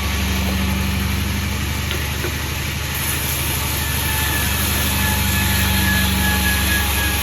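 Sawmill engine running steadily with a low, even drone. A faint high whine joins about four seconds in.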